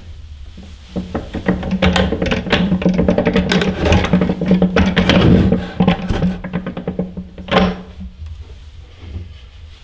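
Old farm machine for separating grain from the plant, worked by hand: a fast, dense mechanical rattle over a steady hum for several seconds, ending in a single knock near the end.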